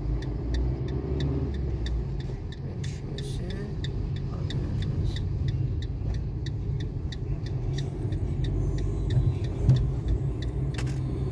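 Car cabin with the steady low engine and road rumble of a car driving through a turn, and the turn-signal indicator ticking about three times a second for the first few seconds. There is a single brief bump about ten seconds in.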